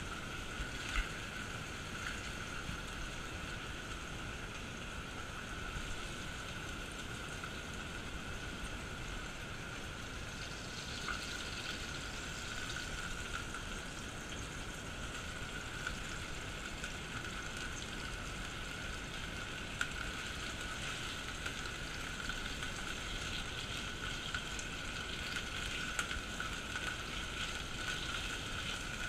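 Chain pickerel fillets frying in oil in a skillet: a steady sizzle with an occasional small pop.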